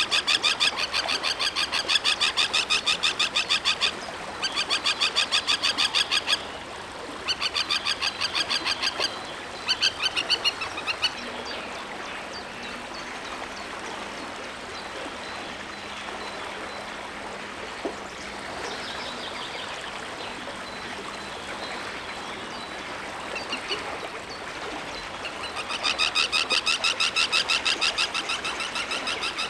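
Common tern calling in fast, rapidly repeated series of sharp, high notes, several bouts in a row, then falling quiet for over ten seconds before a new bout starts near the end.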